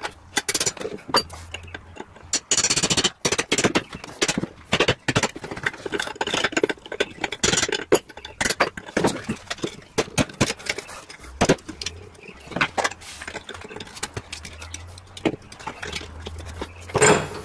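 Hammer striking a punch and a screwdriver to knock the remains of an old broken wooden handle out of the eye of a single-bit axe head held in a vise: a run of irregular sharp metal clinks and knocks.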